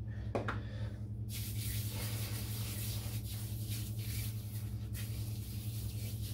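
Shaving brush being swirled and scrubbed around in a tub of shaving soap to load it. It gives a steady bristly hiss that starts about a second in.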